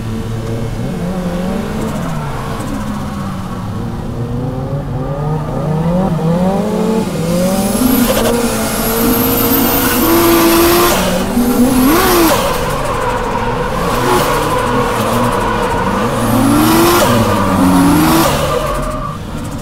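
Toyota JZX Tourer's straight-six engine heard from inside the cabin, revving up and down again and again through a drift. Tyres squeal in high-pitched waves from about eight seconds in and again near the end, when it is loudest.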